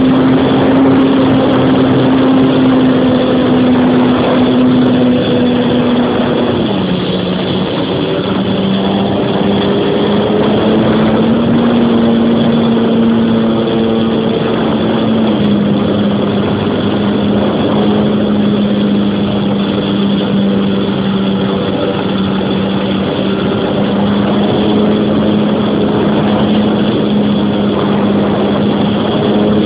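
Electric motor and propeller of a radio-controlled Tiger Stick model plane in flight, heard from right at its nose: a steady drone over a rushing noise. The pitch steps down about seven seconds in, lifts a little, then settles lower from about fifteen seconds.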